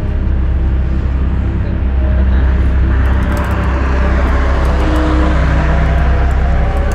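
Motorcycle ride noise at expressway speed: a steady low rumble of wind and road. A rushing noise swells over the middle seconds and fades again.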